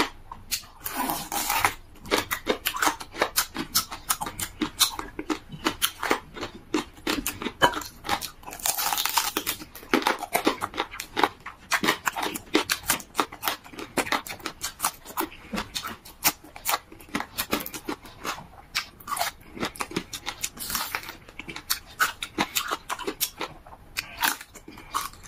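Close-miked chewing and gnawing on beef on the bone: a dense, irregular run of mouth smacks and clicks, with a few brief sucking or crunching noises.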